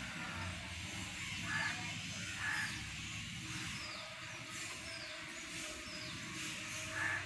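Steady background hiss over a low rumble, with short high chirps that fall in pitch scattered through it and a few brief brighter calls.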